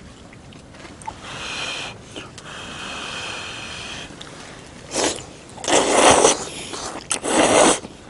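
A person slurping hot curry udon noodles: after a fainter stretch, a short slurp about five seconds in, then two longer, louder slurps.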